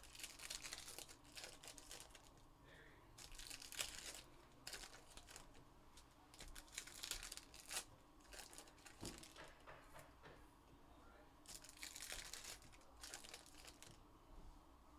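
Foil trading-card pack wrappers being torn open and crinkled by hand, in a string of short crackling bursts with pauses between.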